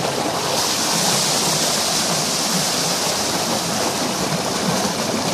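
Tubewell outlet pipe pouring a heavy, steady jet of water into a concrete tank: a continuous rush and splash of falling water, its hiss a little sharper from about half a second in.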